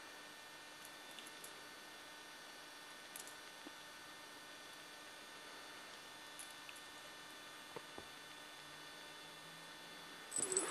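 Steady faint hum and hiss with a few soft ticks. Just before the end a much louder rustling noise starts.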